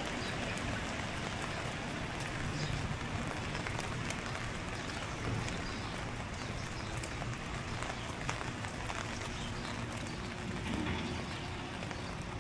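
Steady rain falling, with many small drops ticking.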